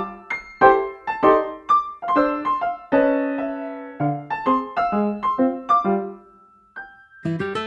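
Background music: a light piano tune of short, quick notes, with a brief pause near the end.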